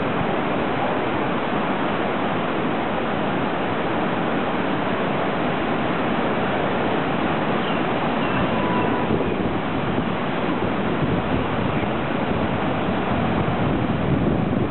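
Heavy, rough surf breaking and washing in, a steady rushing noise, with wind buffeting the microphone.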